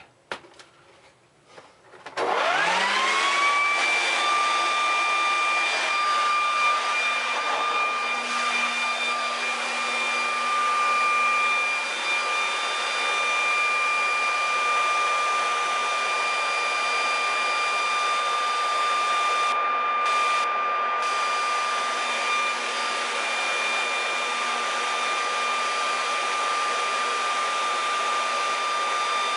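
Leaf blower starting up about two seconds in, its motor whine rising quickly and then running at a steady high whine with a rush of air, blowing dust out of the refrigerator's compressor and condenser compartment.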